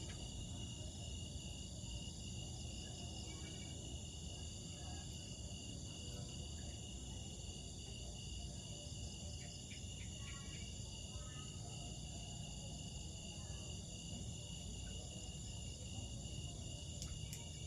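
Steady chorus of trilling insects, several shrill pitches held without a break, over a low rumble.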